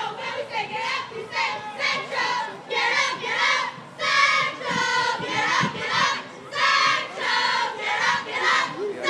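A group of parade marchers shouting a chant in unison, in short rhythmic phrases with brief breaks between them.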